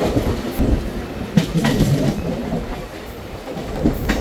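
Mumbai suburban local train running, heard from inside the coach: a steady rumble of wheels on track, with sharp clacks over the rail joints about a second and a half in and again near the end.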